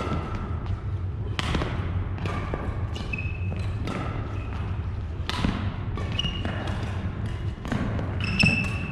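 Doubles badminton rally on a wooden gym floor: a string of sharp racket strikes on the shuttlecock with short squeaks of court shoes between them, over a steady low hum. The loudest strike comes near the end.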